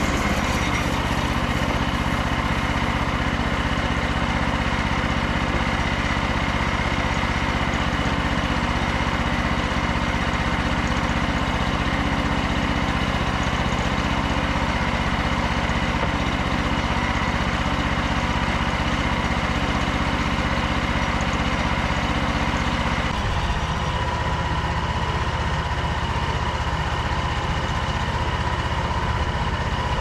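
Frontier OS27 bandsaw mill's petrol engine running steadily under load as the band blade cuts along a Douglas fir log. The engine note shifts about three quarters of the way through.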